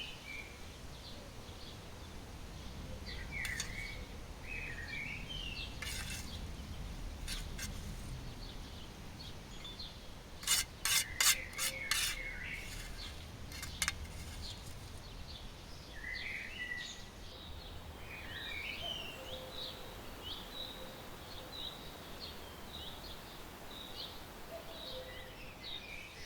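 Small birds chirping and calling on and off over a low outdoor rumble, with a quick run of sharp knocks about ten to twelve seconds in.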